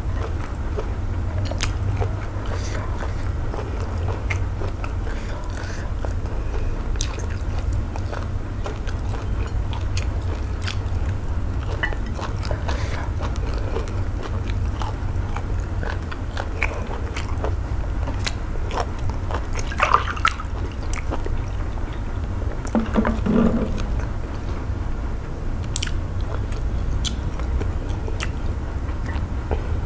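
Close-miked eating by hand: chewing and wet mouth clicks, with fingers squishing eba in okro-melon soup, over a steady low hum. A brief low throaty sound comes about three-quarters of the way in.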